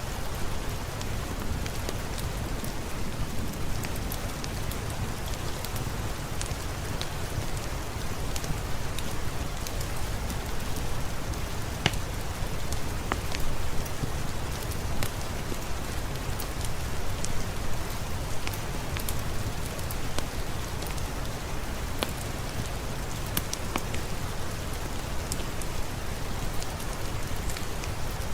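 Steady rain falling, with a low rumble beneath and scattered sharp pops and crackles of a fireplace fire throughout.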